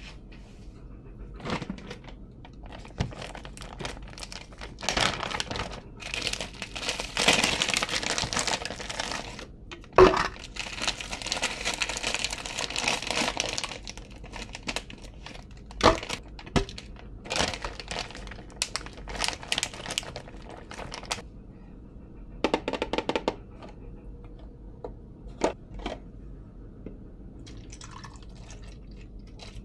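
Kitchen handling sounds: a plastic bag of frozen banana pieces crinkling and rustling in long stretches, with sharp knocks as pieces drop into a plastic blender cup and the cup and parts are set on the counter. Near the end, almond milk is poured into the cup.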